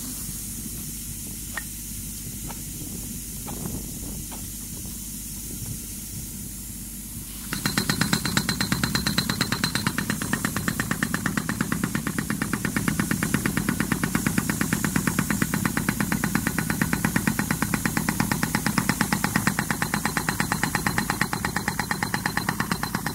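Pneumatic soil-piercing mole (a 'raket') hammering rapidly as it drives a horizontal bore through the ground for conduit. For the first seven seconds or so the hammering stops and only a steady hiss and low hum are heard; then the rapid, even hammering starts again and keeps on.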